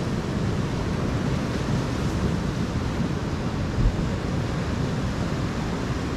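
Ocean surf washing against a rocky shore, a steady rushing noise, with wind buffeting the microphone and one brief low thump about four seconds in.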